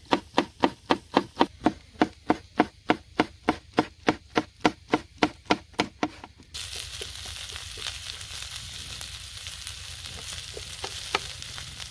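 Knife chopping green chili on a cutting board, even strokes at about four a second, stopping about six and a half seconds in. It then switches abruptly to a steady sizzle of okra and onion frying in oil in a pan.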